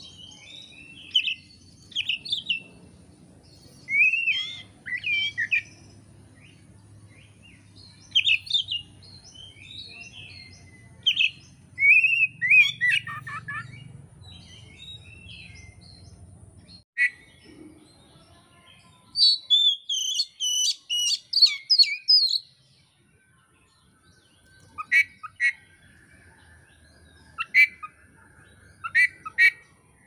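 Oriental magpie-robin (kacer) singing in bursts of quick, varied whistled phrases with short pauses between them, ending with a few short, sharp notes near the end.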